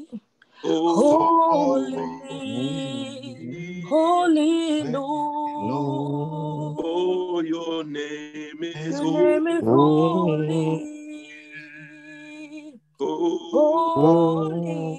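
A man singing a slow worship chorus on his own, with long, drawn-out notes. The sound drops out briefly just after the start and again about 13 seconds in.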